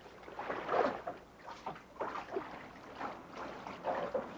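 Water splashing from paddling swimming strokes: repeated short splashes.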